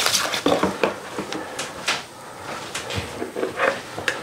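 A handful of separate light knocks and clacks as a plastic mixing bowl with a whisk in it is handled and lifted, the whisking having stopped.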